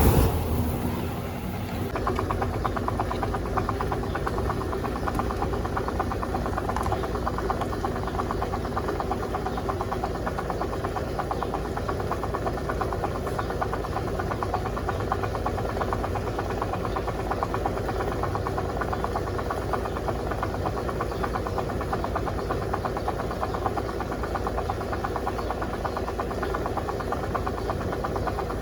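Electrolux LTC07 top-load washing machine during its drain stage: a loud rush dies away in the first second or two, then a steady motor hum with a fast, even rattle runs on.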